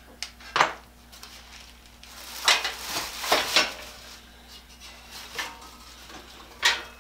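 Metal clanks and knocks as the folding workbench's metal frame and top pieces are handled and set down on the bench: two sharp knocks about half a second in, a cluster in the middle, and another sharp knock near the end.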